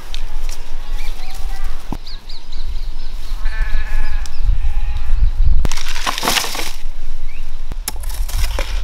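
A farm animal bleats once, briefly, about three and a half seconds in, over a steady low rumble. A couple of seconds later comes a loud burst of noise, the loudest thing here.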